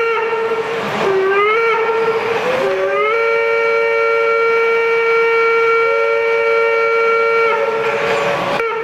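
Steam-locomotive whistle from a Gauge 1 model steam locomotive. Short toots that slide up in pitch as each begins come at the start and about one and two and a half seconds in. A long blast of about four and a half seconds follows from about three seconds in, and another toot starts right at the end.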